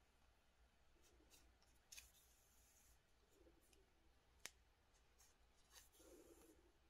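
Near silence with faint rustling and light clicks of a metal sewing needle and yarn being worked through a crochet scarf, sewing on a label; one sharp tick about four and a half seconds in.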